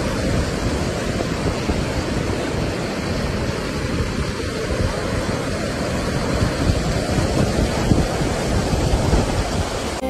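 Mountain stream rushing and splashing over rocks, a steady, even roar of water.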